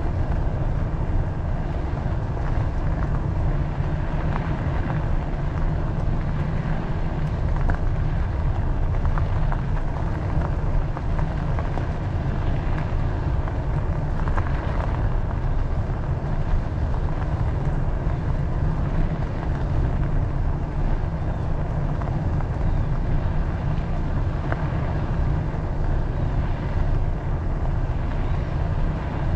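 Steady low rumble of wind on the microphone of a moving bicycle, with the hiss of tyres on pavement.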